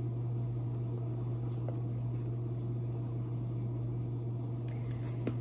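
Dry-erase marker writing on a small whiteboard, with faint squeaks and strokes, over a steady low hum from a running household appliance.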